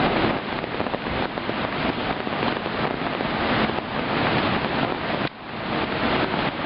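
Steady rushing roar of the Athirappilly waterfall, with wind buffeting the microphone. The noise drops sharply for a moment about five seconds in, then returns.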